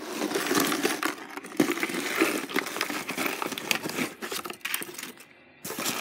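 Loose costume jewelry being gathered up by hand: metal, glass and acrylic pieces clinking and rattling together, with plastic bags crinkling. It stops briefly near the end, then starts again.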